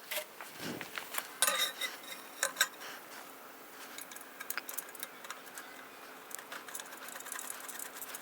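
Metal clinking and knocking as a glass-wool-wrapped baffle core is fitted into a motorcycle muffler: a cluster of sharp, ringing knocks about one and a half to three seconds in, then lighter scattered clicks.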